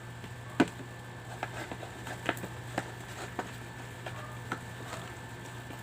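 Sticky slime being mixed and squished by hand in a bowl, giving irregular small clicks and pops, the loudest about half a second in, over a steady low hum.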